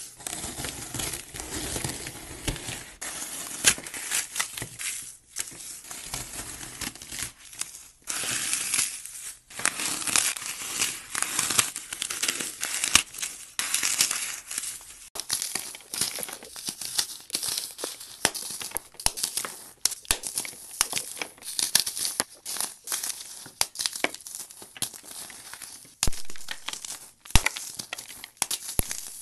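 Dry, paste-coated floral foam being crushed and crumbled in bare hands: a dense crunchy crackling of many small cracks, with a few brief breaks.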